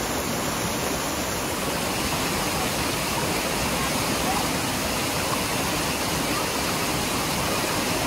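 Steady rush of falling and running water from Bhagsunag waterfall and its stream over the rocks.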